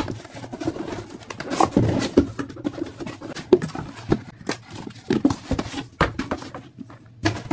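Parcel packaging torn open by hand: a busy run of rustles, crinkles and rips.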